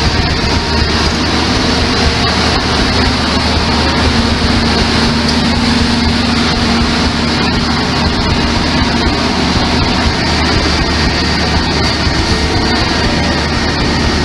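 Diesel engine of the Botchan train's replica locomotive running steadily at idle, a constant unbroken hum.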